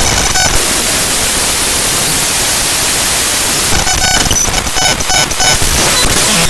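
Raw binary data of HandBrake's hb.dll library file played back as audio: harsh static hiss, broken about two thirds of the way in by a buzzy stretch of steady repeating tones, then hiss again.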